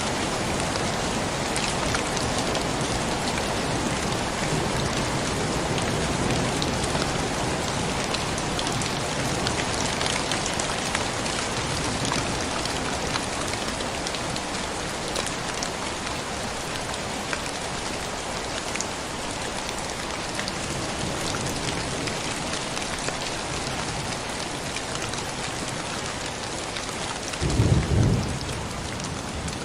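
Steady rain falling, a dense even hiss of drops. Near the end a short, loud clap of thunder rumbles over it.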